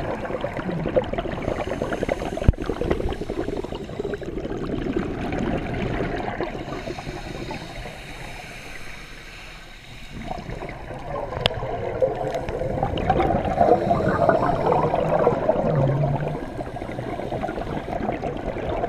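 Scuba divers' regulator bubbles gurgling underwater as exhaled air escapes, in long irregular spells with a quieter lull around the middle. A single sharp click sounds a couple of seconds in.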